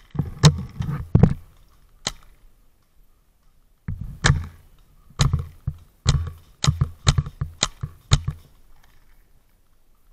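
Paintball marker firing about ten single shots, each a short sharp pop: three in the first two seconds, then after a pause a quicker run of shots from about four to eight seconds in.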